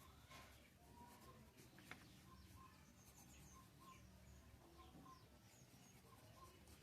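Near silence: faint room tone with a low hum, and faint short bird chirps repeating in the background.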